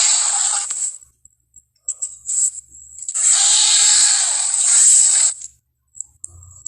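Two harsh, hissing monster roars of a fictional dinosaur, built from edited Carcharodontosaurus and Godzilla (1999–2004) growl and snarl sound effects. The first ends about a second in; the second starts about three seconds in and lasts about two seconds.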